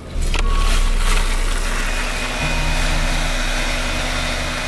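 Engine of road-repair machinery running steadily, its low note shifting a little partway through.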